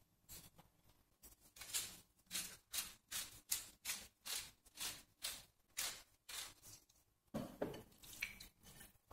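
Wooden pepper mill grinding black pepper, a run of rasping twists at about two a second. Near the end, hands rub and squeeze wet raw chicken pieces in a plate to mix in the seasoning.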